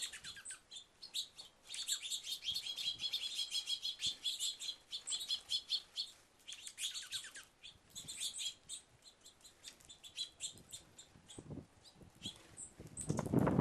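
A flock of small birds chirping and twittering together at a feeder, a dense chatter that thins out about halfway through. Near the end a louder, lower-pitched noise starts up under the chirps.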